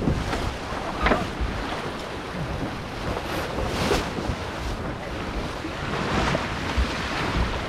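Wind buffeting the microphone over the rush and splash of water along a Flying Dutchman dinghy's hull as it sails downwind, with a couple of brief louder moments about a second in and near four seconds.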